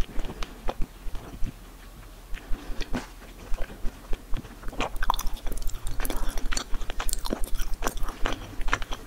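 Close-up chewing of a mouthful of yogurt with crunchy seed and cereal-grain toppings: wet mouth clicks and small crunches, sparse at first and coming thick and fast from about halfway through.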